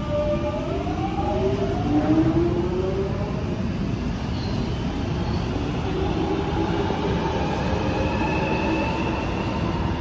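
London Underground 1996 Stock Jubilee line train pulling out of the platform. Its traction motors give a whine that rises in pitch as it accelerates, over a steady low rumble of wheels on rail.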